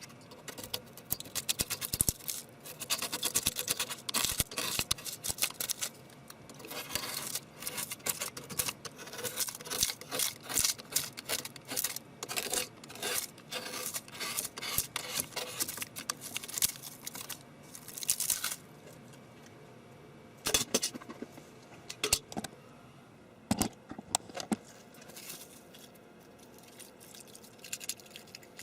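Rapid, irregular clicking, scraping and rattling of small hard objects being handled, in dense spells for about the first eighteen seconds, then only a few scattered sharp clicks.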